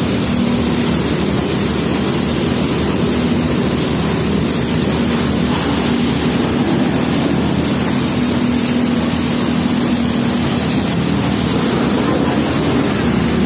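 Steady rushing noise over the steady drone of a running engine.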